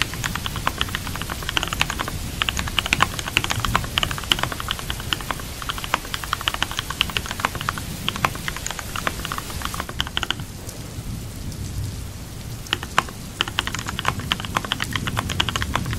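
Computer keyboard typing in quick runs of keystrokes over steady rain. The typing stops for about two seconds a little past the middle, leaving only the rain, then resumes.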